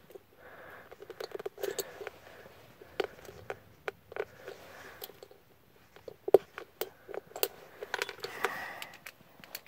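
Small metal lock parts being handled: a string of light clicks and taps with soft scraping between them, and one sharper click about two thirds of the way in, as the rekeyed lock cylinder is reassembled.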